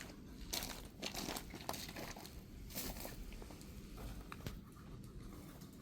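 Irregular crinkling and rustling of something being handled: several short rustles, one after another.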